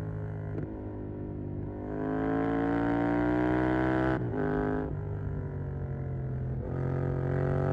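Yamaha MT-07's 689 cc parallel-twin engine through a Mivv GP Pro stainless exhaust, accelerating under load with a rising pitch, then shifting up about four seconds in and again near the end, each time dropping in pitch and climbing again. Picked up by a phone in the rider's back pocket.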